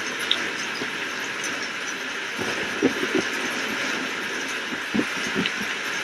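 Steady rain, a dense even hiss, with a few short louder taps about halfway through and again near the end.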